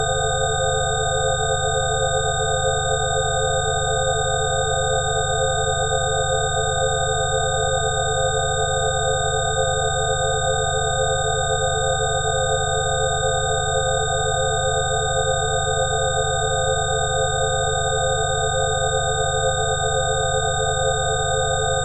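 Synthesized sound-healing frequency track: several pure sine tones held together without change over a low steady hum. A faint regular pulsing runs through the hum.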